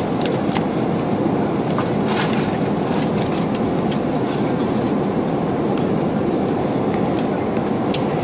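Steady in-flight cabin noise inside a Boeing 787 Dreamliner, the engines and airflow as an even rush at a constant level. Faint short clicks and rustles of a meal tray and its wrappings being handled sit on top of it.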